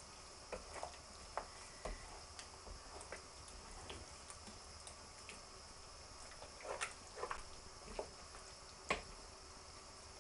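Thick tomato curry sauce heating in a pan as it comes to the boil: faint, irregular bubbling pops, with a few louder pops in the second half.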